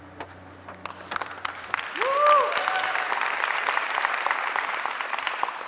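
Audience applauding, with one voice briefly calling out about two seconds in. Music fades out as the clapping builds.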